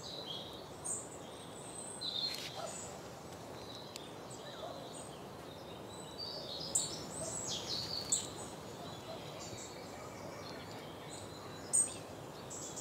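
Quiet forest ambience: a faint steady hiss with scattered short, high bird chirps and calls, a sharp one near the end.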